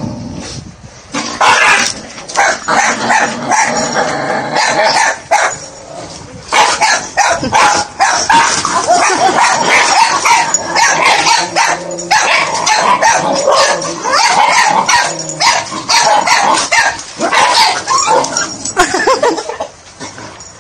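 Dog barking and yelping in quick succession, almost without a break from about a second in, as it fights a rooster that is pecking at it.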